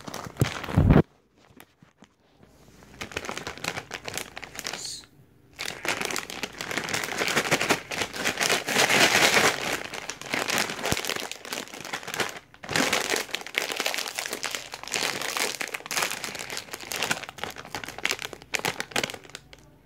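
A thump about a second in, then a metallised plastic Takis Fuego chip bag crinkling and rustling as it is handled and pulled at to tear it open.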